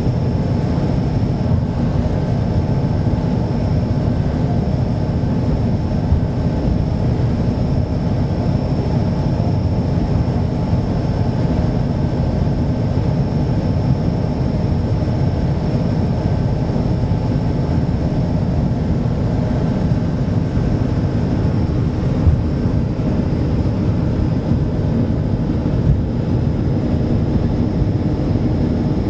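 Hydrofoil's engines running with a steady, unchanging low drone, with a few faint steady whining tones above it.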